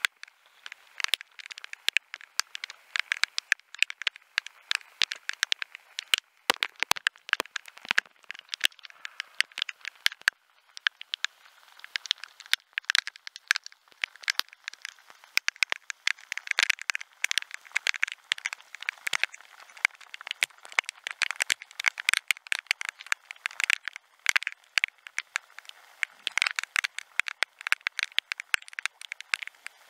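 Rain falling, its drops ticking sharply and irregularly close to the microphone, many a second.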